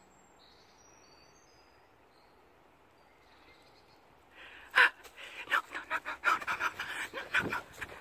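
Faint bird chirps over quiet woodland, then from about halfway rapid, irregular panting breaths with rustling as someone hurries through the undergrowth.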